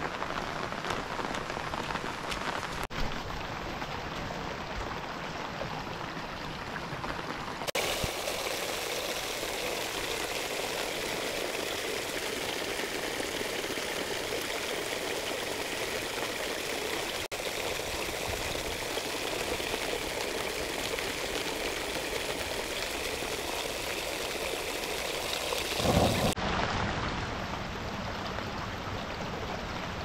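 Heavy, steady rain, made up of several stretches spliced together: the sound changes abruptly about 3, 8, 17 and 26 seconds in, with a brief louder swell just before the last change.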